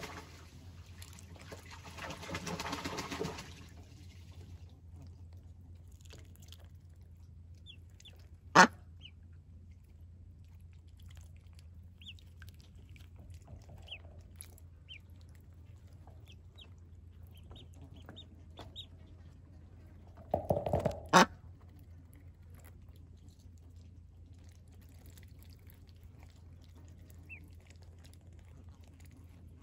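Young Welsh Harlequin ducklings giving soft, short peeps now and then as they swim in a shallow metal tub of water. Two sharp knocks stand out, one about eight seconds in and one about twenty-one seconds in, the second just after a brief rustling burst.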